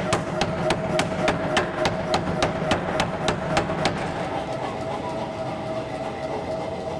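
Power hammer striking hot H13 tool steel in a steady run of sharp blows, about three and a half a second, as the stock is drawn into a taper. The blows fade out after about four seconds, leaving a steady hum.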